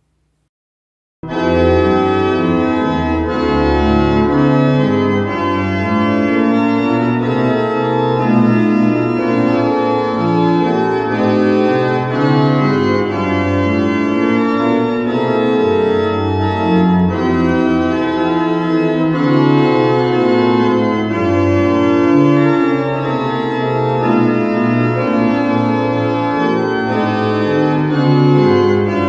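Church pipe organ playing a piece of sustained chords over a moving bass line, starting about a second in.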